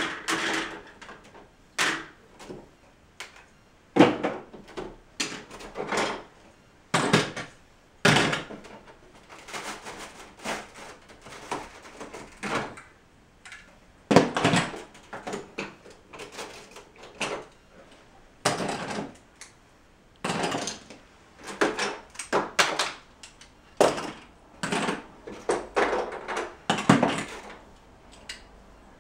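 Lego bricks and wall sections being pried apart and dropped onto piles of loose bricks on a table: irregular hard plastic clicks and clattering, a few sharp knocks at a time with short gaps between.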